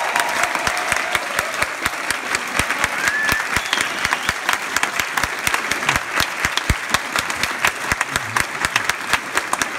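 Audience applauding: many hands clapping steadily, dense and irregular.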